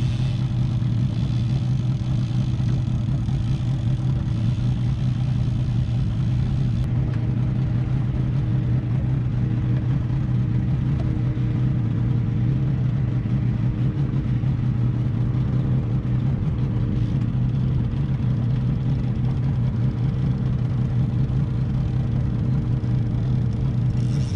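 Boat engine running at a steady speed, a constant low drone that does not change in pitch.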